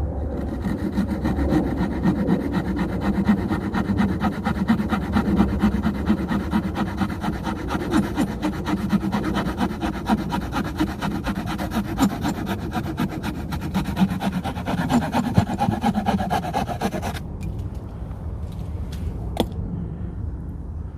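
Wood saw blade of a Victorinox Hiker Swiss Army knife sawing through wood in rapid back-and-forth strokes, stopping abruptly about 17 seconds in.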